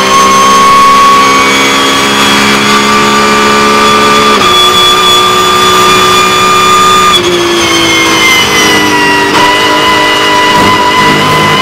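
Porsche 911 GT3 Cup race car's flat-six engine, heard onboard at racing speed. A steady, high engine note with a step in pitch about four seconds in, then a falling pitch over about two seconds from around seven seconds in, before it holds steady again.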